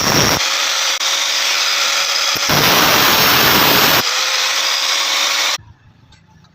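A power tool running hard on metal, a dense noise with a steady high whine that shifts abruptly a few times and cuts off suddenly near the end.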